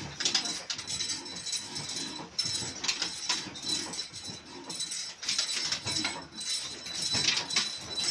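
Irregular knocks, clinks and scraping of hands and tools working at the base of a large old stationary diesel engine that is not running, with a faint steady high whine underneath.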